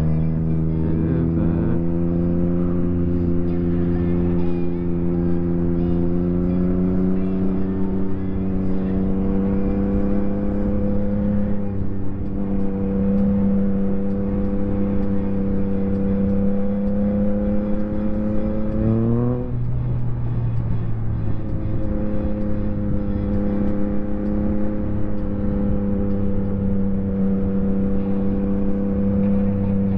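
Yamaha MT-09 SP's three-cylinder engine through a full Akrapovic race exhaust, running under steady throttle with its pitch slowly creeping up. About 19 seconds in the revs climb briefly, then the pitch drops sharply, and the engine settles to a steady note again.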